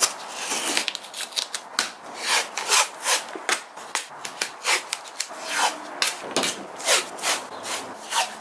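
Sanding block rubbing back and forth over a plastic headlight lens wet with lubricant, in rhythmic rasping strokes about two to three a second. This is the first, roughest-grit pass, taking the yellowed oxidation off the lens.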